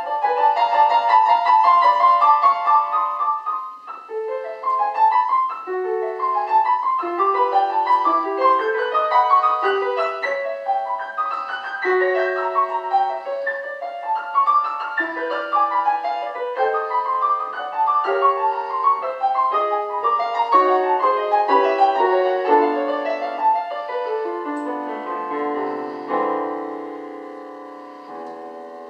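Solo acoustic piano playing a classical piece, a steady flow of melody and chords. About 26 seconds in a low chord is struck and left ringing, dying away.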